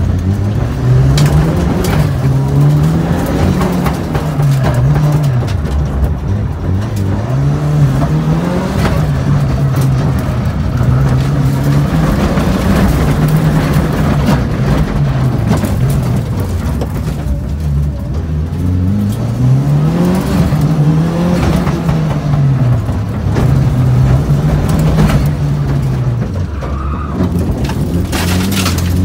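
Mitsubishi Lancer Evolution III rally car's turbocharged 2.0-litre four-cylinder engine, heard from inside the cabin while driven hard. The engine note climbs and then drops back every couple of seconds, over and over, through gear changes and corners.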